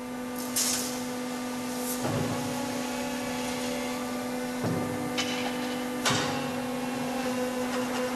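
Concrete egg-layer machine running with a steady mechanical hum, broken by a few short hisses and clunks as its mould is worked.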